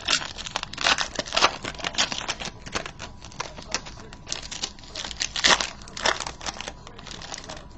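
A trading-card pack wrapper crinkling as it is handled and torn open, irregular crackles with louder bursts about a second and a half in and again around five and a half seconds in.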